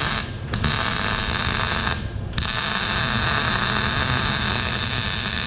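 Wire-feed welding gun arc running as a steady hiss, with its trigger released and pulled again twice: the arc cuts out briefly twice in the first two and a half seconds, then runs on unbroken.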